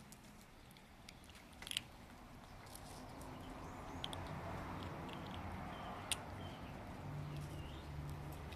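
Calico kitten chewing and biting soft pieces of Whiskas Junior chicken cat food, giving small wet clicks and crunches. A low background hum swells from about three seconds in.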